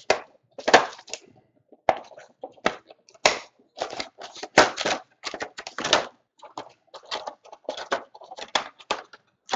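Plastic wrapping of trading-card packs crinkling and crackling as hands unwrap and handle them, in irregular short bursts.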